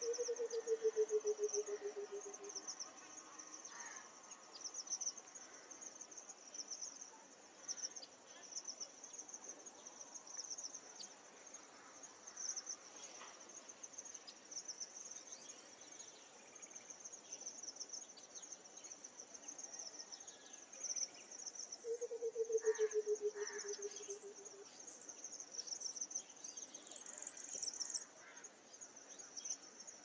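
White-browed coucal calling twice, each call a rapid run of low hoots falling in pitch for about two and a half seconds: once at the start and again about 22 seconds in. A steady high chirring of insects runs underneath.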